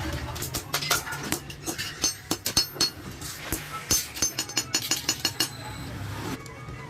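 Hammer tapping on sheet metal for a large kettle: quick, irregular clinking strikes, several a second, over a low steady hum.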